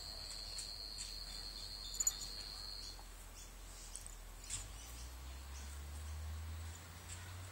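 A cricket chirping as one steady, high-pitched trill that stops abruptly about three seconds in, over faint outdoor background noise and a few soft clicks.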